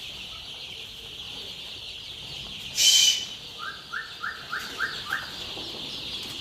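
A large flock of young chicks peeping in a dense, continuous high-pitched chorus. About three seconds in comes a brief loud rustling noise, followed by a quick run of six short rising calls, lower in pitch.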